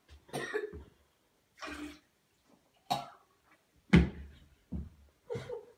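A person coughing in about six short, separate bursts, the loudest about four seconds in.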